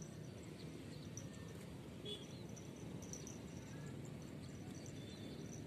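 Quiet outdoor ambience: a steady low rumble with faint, scattered high-pitched chirps and a single click about two seconds in.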